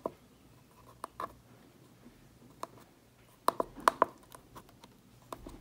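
Buttons on a RigExpert AA-30 antenna analyzer clicking as a frequency is keyed in: scattered single clicks, then a quick run of several about three and a half seconds in.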